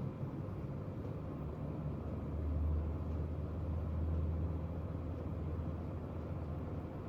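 Steady low hum of a room air conditioner, swelling slightly between about two and a half and four and a half seconds in.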